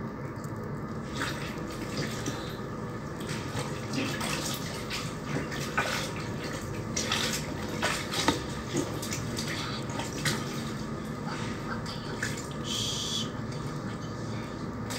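Clothes being hand-washed in a plastic basin of water: irregular splashing and sloshing as wet fabric is scrubbed and moved about by hand.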